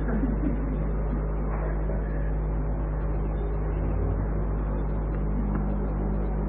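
Steady low electrical hum with an even hiss, the background noise of an old recording, with nothing else sounding.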